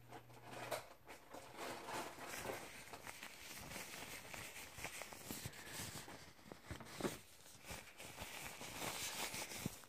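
Close, soft rustling and scattered light taps as fluffy fabric is rubbed and pressed over a phone's microphone. A low steady hum cuts out about a second in.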